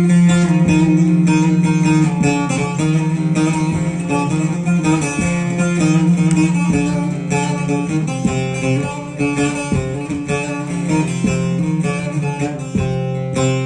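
Instrumental music: a plucked string instrument playing a fast run of notes over a steady held low drone.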